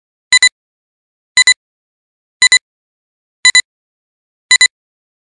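Countdown beeps from a film-leader countdown animation: a quick high-pitched double beep about once a second, five times, with silence between.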